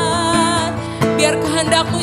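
Live worship band music: a held, wavering note over instrumental backing with regularly struck notes.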